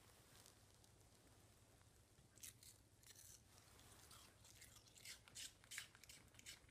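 A Yorkshire terrier crunching a piece of raw apple: faint, crisp crunches, several a second and irregular, starting about two and a half seconds in.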